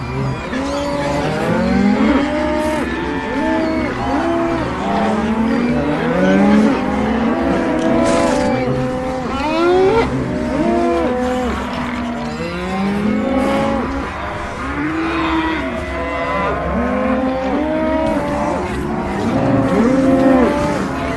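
Stomach growling sound effects: many pitched growls overlapping densely, each rising, holding and falling in pitch.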